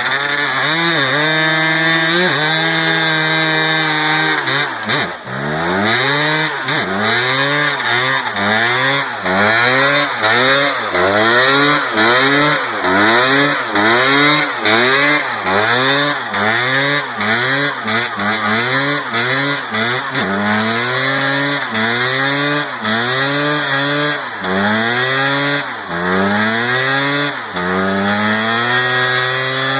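GasGas EC300 single-cylinder two-stroke engine revving hard while the rear tire spins in a burnout. Its pitch is held fairly steady for the first few seconds, then rises and falls about once a second as the throttle is blipped, over a steady hiss.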